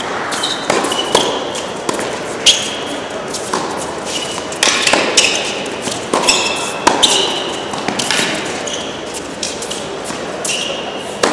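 A doubles tennis rally on an indoor hard court: rackets strike the ball and the ball bounces, in a string of sharp hits that ring in the large hall. Short high squeaks, typical of tennis shoes on the court, come between the hits.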